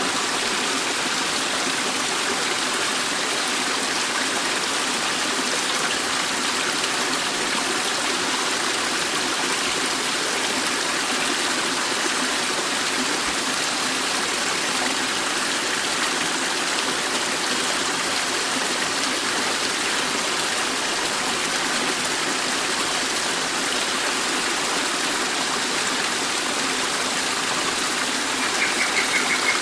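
Waterfall rushing, a steady full splashing roar of falling water. A rapid, high pulsing sound joins in near the end.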